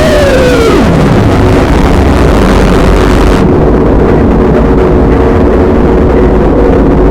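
Fan-made Emergency Alert System alarm, deliberately distorted and very loud. Its tone slides sharply down in pitch about a second in, then settles into low steady droning tones under a harsh wall of noise. The high end cuts out about three and a half seconds in.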